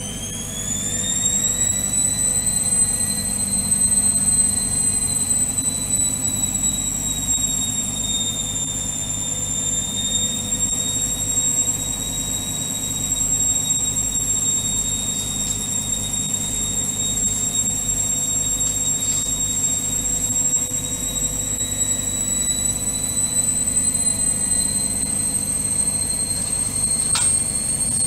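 Indesit front-loading washing machine spinning a towel load at high speed. The motor's high whine climbs in pitch over the first couple of seconds as the drum comes up to speed, then holds steady over a low drum rumble. A faint click sounds near the end.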